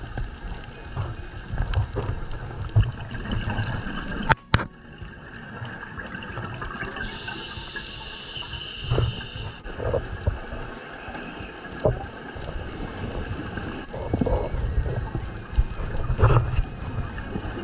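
Underwater sound of a scuba diver's exhaled bubbles rumbling and gurgling in irregular bursts, with scattered sharp clicks.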